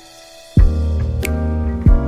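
Background music: soft held keyboard notes, then about half a second in a beat comes in with a kick drum, bass notes and a sharp percussion hit about a second later.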